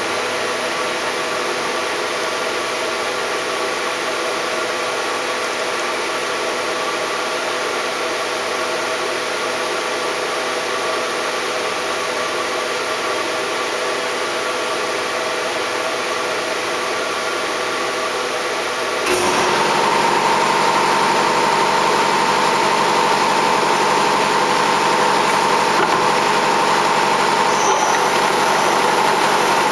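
Shizuoka B-15V CNC vertical machining center running, a steady hum and whine of its motors and drive. About two-thirds of the way through, it suddenly gets louder and a higher steady whine joins in.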